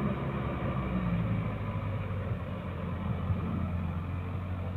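Diesel engines of a Sonalika tractor and a JCB 3DX backhoe loader running steadily under load as the backhoe pushes the stuck, loaded tractor trolley through mud; the engine note shifts lower about a second in.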